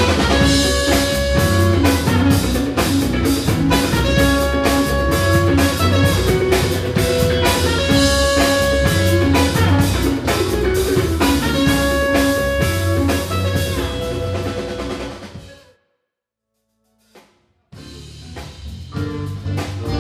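Live band music driven by a drum kit, with held sustained notes over the beat. The music fades out about three-quarters of the way through, drops to complete silence for nearly two seconds, then starts up again near the end.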